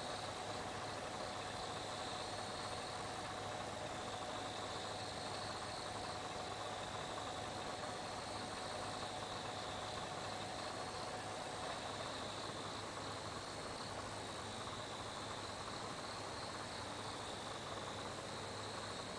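Night insects chirping steadily in a high, wavering band, over a low steady hum. A faint steady tone underneath stops about twelve seconds in.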